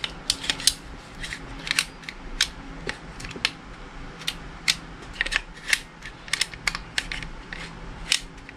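Irregular small clicks and taps, a few a second, of metal and plastic airsoft pistol parts being handled while the hammer spring assembly is worked into a Beretta M9 frame.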